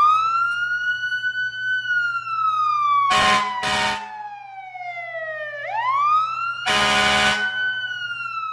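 Electronic wailing siren from a toy fire engine's sound module. The pitch swoops up, slides slowly down over a few seconds, then swoops up again. Two short harsh blasts come about three seconds in and a longer one about seven seconds in, over a low steady hum.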